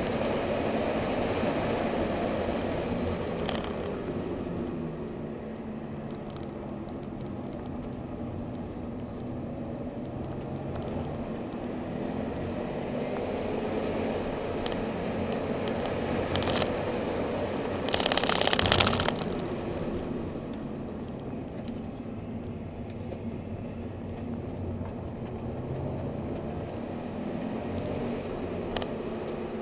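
Car engine and road noise heard from inside the cabin while lapping a race circuit, the engine note rising and falling with throttle and gear changes. About two-thirds of the way through there is a brief, loud rattling noise lasting about a second.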